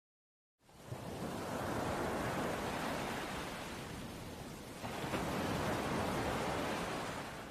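A steady rushing noise like surf or wind starts abruptly out of silence just under a second in. It swells, eases off a little past the middle, then swells again.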